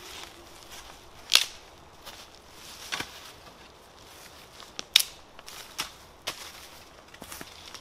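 Dry dead branches cracking and snapping as they are broken and pulled about by hand, with footsteps crunching in dry leaf litter. Two sharp cracks stand out, about a second and a half in and again about five seconds in, with smaller snaps between.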